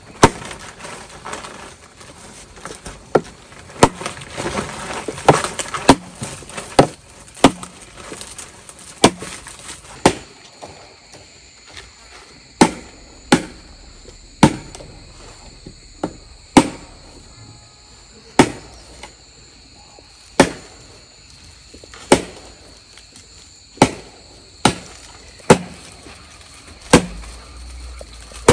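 Repeated sharp blows of a hand tool on bamboo, about one a second, unevenly spaced. From about ten seconds in, a steady high insect buzz runs underneath.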